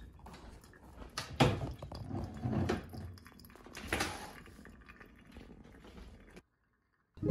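A few soft knocks and clicks over a faint room hum, the loudest about one and a half seconds in.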